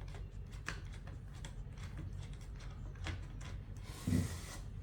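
Flathead screwdriver working the screw that holds an AR-15 A2 buttstock, giving irregular light clicks and scrapes, with a short thump about four seconds in.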